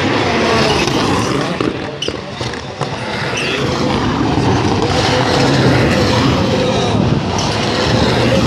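Rallycross cars racing on the circuit, their engines running loud and changing pitch as they drive through the corners and down the straight, with a short dip in loudness about two seconds in.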